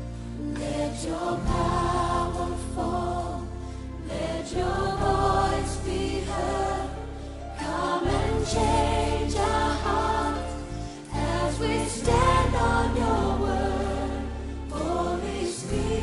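Slow worship song: voices singing in harmony over a sustained low bass, with chord changes about every four seconds.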